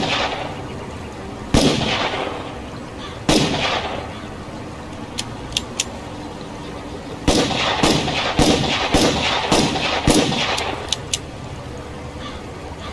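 Revolver shots: two single shots a couple of seconds apart, then six shots in quick succession about half a second apart, each with a trailing echo. A few short sharp clicks come in the pause before the run of six and just after it.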